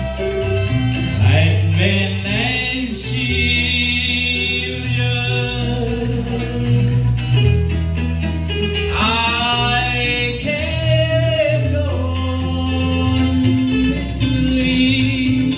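Live band music: plucked strings over a steady bass line, with a singing voice carrying a wavering melody.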